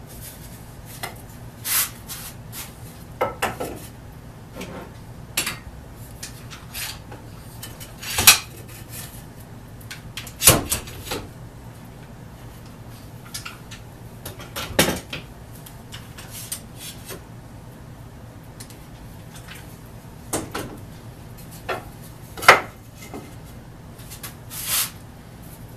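Wooden boards being handled and set against a workbench while bar clamps are fitted and tightened: irregular knocks, clacks and scrapes of wood on wood and on metal clamp parts, with a few sharper, louder knocks among them, over a faint low hum.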